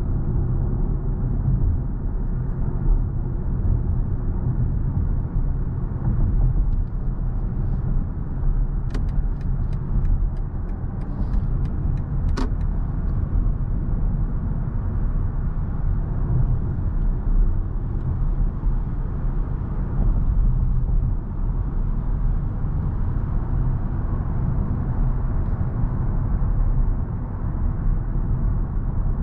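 Electric BMW i7 sedan driving, a steady low rumble of road and tyre noise, with a short run of light, evenly spaced ticks about a third of the way in.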